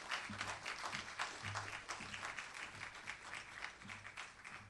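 Audience applauding in a hall, dying away near the end.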